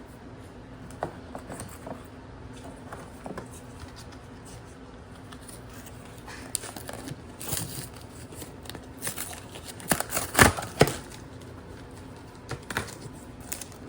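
Trading cards and booster-pack wrappers being handled: scattered light crinkling, rustling and card snaps, with a louder run of crinkling and snapping about ten seconds in.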